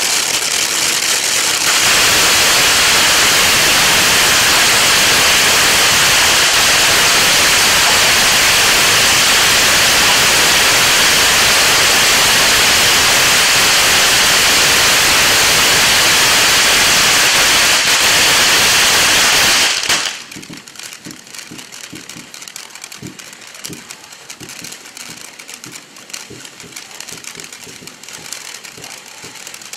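Peacock Fountain SS-1102 firework fountain spraying sparks with a loud, steady hiss that grows louder about two seconds in. About twenty seconds in the hiss cuts off, and quieter irregular crackling follows as the fountain burns down.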